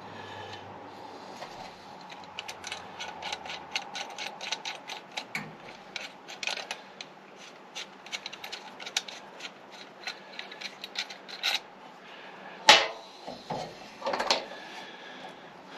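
Small metal hand tools clicking and rattling in quick, irregular runs, followed by two louder sharp clacks near the end.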